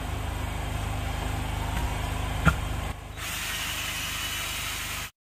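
Cordless drill spinning a scrub brush on a wet leather car seat, its motor running steadily with a faint whine. A click comes about two and a half seconds in, the sound changes a little just after, and it cuts off suddenly near the end.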